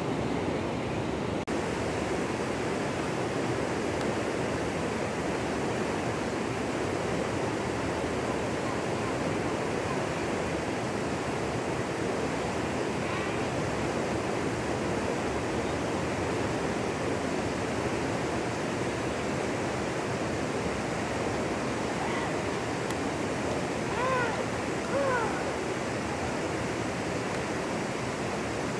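Steady rushing of flowing canal water. Near the end, two short pitched calls rise and fall.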